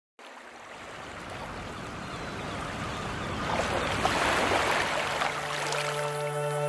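Small waves washing onto a sandy beach: a hiss of surf that grows louder and is loudest as a wave breaks about four seconds in. Near the end, held notes from a wind instrument come in as music.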